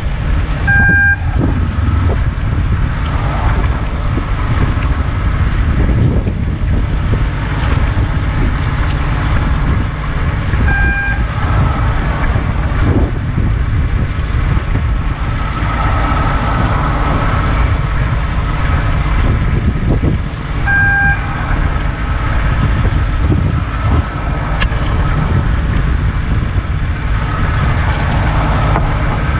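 Fishing boat's engine and wind making a steady rumble on deck, with a short electronic beep three times, about ten seconds apart: typical of a longline setting timer signalling when to clip on the next baited branch line.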